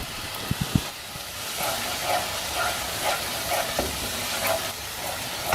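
Thick tomato-onion masala sizzling in a pan as a spoon stirs it, with a few sharp knocks about half a second in. The masala has cooked down and thickened.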